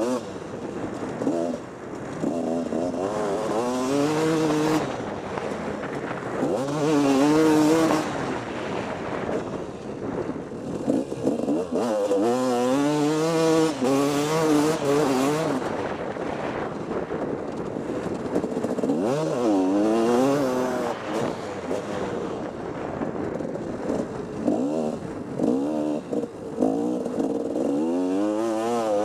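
Two-stroke motocross bike's engine revving hard and then backing off again and again as it is ridden through the track's turns and jumps, its pitch rising and falling with each burst of throttle.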